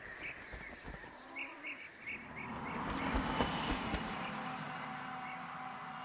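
Outdoor field ambience with small songbird chirps, repeated in quick short notes about a second and a half in and again later. A rush of noise swells and then slowly fades, peaking about halfway through.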